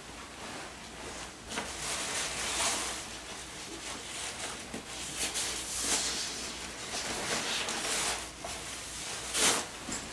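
Pages of a college textbook being flipped, a series of rustling swishes with a louder one about nine and a half seconds in.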